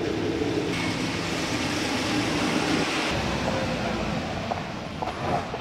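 Traffic noise in the rain: a steady low rumble, with a louder hiss of tyres on the wet road as a vehicle passes from about one to three seconds in.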